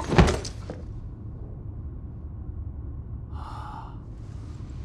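A body hits the floor of a train carriage with a sudden heavy thud, over the train's low steady rumble. About three and a half seconds in, a man gives a short breathy gasp.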